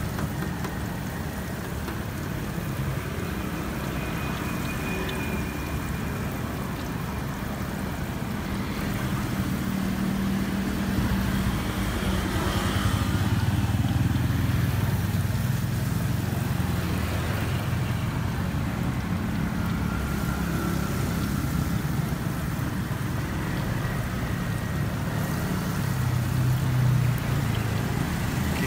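Battered bananas deep-frying in a wok of hot oil, a steady sizzle, under the low rumble of passing motor vehicles that swells about ten seconds in and again near the end.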